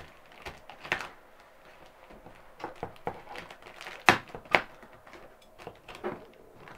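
Scissors snipping and cutting through plastic packing tape on a cardboard box: a series of irregular sharp snips and crackles, the two loudest close together about four seconds in.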